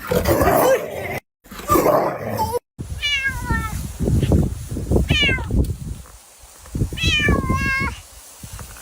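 A cat meowing three times, each call falling in pitch, over low rumbling noise. Before the meows come a few short bursts of noise, broken by sudden cuts.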